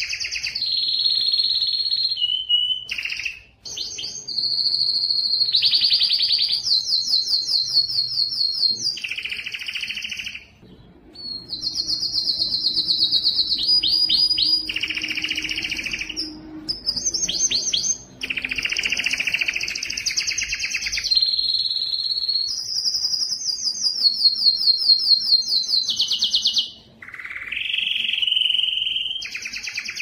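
Male domestic canary singing a long, strong song of rapid trills and rolls alternating with held whistled notes, broken by a few short pauses. It is courtship song to attract females.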